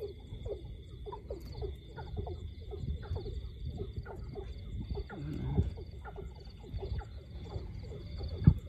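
A chorus of frogs calling, short low croaks repeating several times a second, over a steady high trilling of night insects. A single sharp knock near the end.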